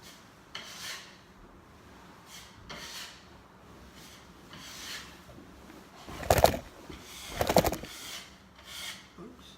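A series of short rubbing, scraping strokes, faint at first, with two much louder, coarser scrapes about six and seven and a half seconds in.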